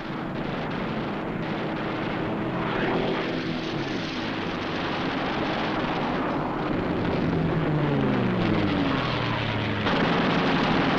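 Propeller fighter aircraft engine droning, falling in pitch twice as planes dive and pass. A sudden louder noisy rush comes in near the end.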